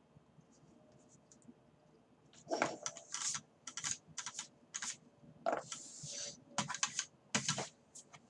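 Typing on a computer keyboard in short quick bursts of clicks, starting about two seconds in.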